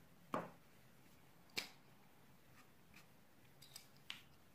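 Near silence with three short, soft clicks spread over a few seconds: a marker and pen being handled on the desk.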